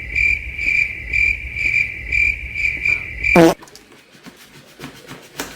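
Chirping cricket sound effect: a steady, pulsing chirp about twice a second. About three and a half seconds in it is cut off by a quick, loud downward-sweeping sound, and a few faint taps follow.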